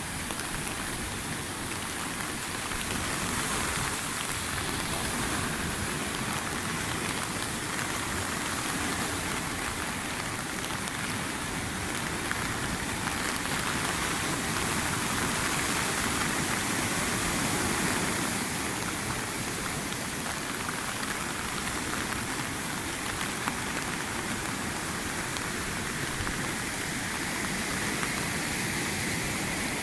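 Steady hiss of heavy rain in strong wind, with no change throughout.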